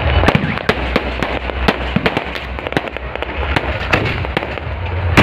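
Fireworks going off in quick succession: aerial shells bursting with sharp bangs and crackles, several a second, with no pause between them.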